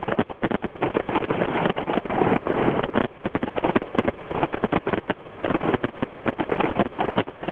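Fireworks bursting and crackling, many bangs in quick succession. They thin out around the middle and grow dense again near the end.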